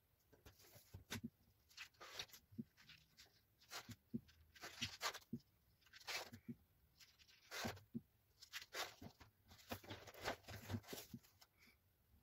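Pages of a spiral-bound sketchbook being turned and handled: a run of faint, irregular paper rustles and swishes.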